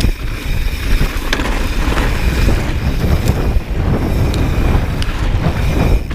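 Mountain bike rolling fast down a dry, rocky dirt trail: wind rushing over the microphone and a steady low rumble of tyres on loose ground, with scattered sharp clicks and rattles from stones and the bike.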